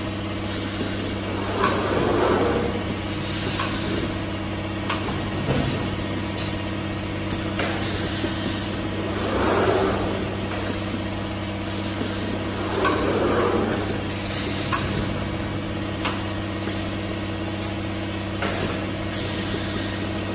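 Automated jug palletizer running: a steady machine hum, with short hisses of compressed air from its pneumatic gripper and valves every few seconds and scattered sharp clicks.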